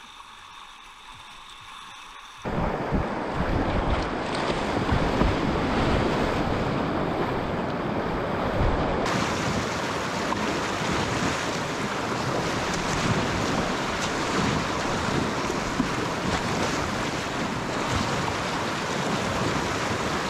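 Loud rushing river water with wind noise on the microphone, starting abruptly about two and a half seconds in and holding steady after that.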